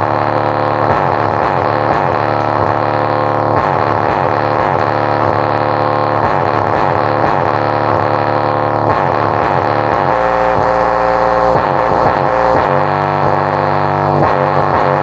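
A 2-ohm subwoofer driven hard by a Heng Peng 2.1 amplifier board plays loud audio full of sliding tones. The amplifier is near its full output, pushing over 3 amperes into the speaker.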